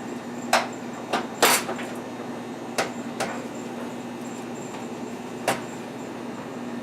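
Sheet-metal stovetop being handled and pressed down into its clips: about six irregular knocks and clunks, the loudest in the first two seconds, over a steady low hum.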